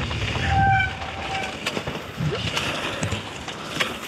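Mountain bike rolling over a rough trail: a low tyre rumble with knocks and rattles from the bike, and a brief high squeal about half a second in.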